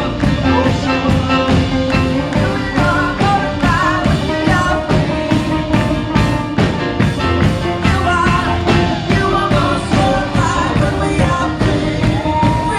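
Upbeat live praise and worship music: a band playing a steady, driving beat with singing voices over it.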